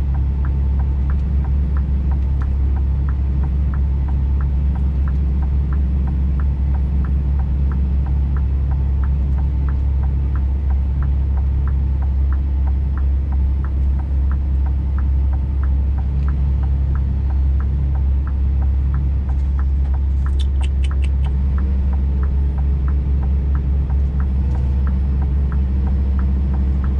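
Scania truck's diesel engine pulling steadily under held throttle on a snowy climb, a deep drone heard from inside the cab. A regular ticking about two or three times a second runs over it, fitting the hazard-warning flasher. A brief rattle of clicks comes about two-thirds of the way in.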